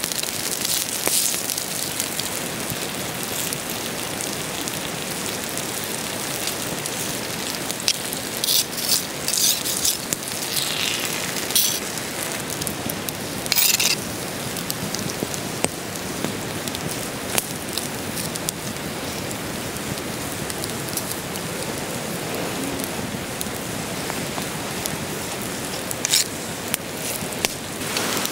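Potato slices and an egg sizzling on a flat stone slab set over a wood campfire, a steady hiss, with the fire crackling in scattered sharp pops.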